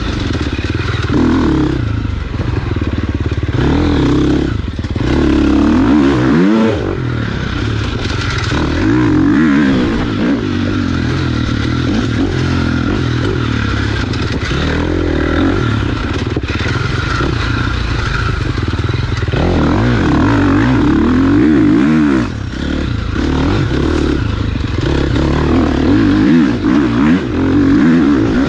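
Off-road dirt bike engine revving up and down again and again as it is ridden hard through tight woods single track, dropping off briefly about three quarters of the way through.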